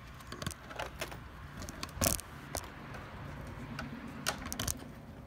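Radio-controlled monster truck driving off across asphalt, a faint low hum under scattered sharp clicks and knocks, the loudest knock about two seconds in.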